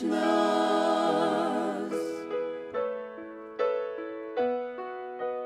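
Several voices hold the last sung word of a phrase with vibrato, dying away about two seconds in; then a piano plays on alone in slow chords, each struck and fading.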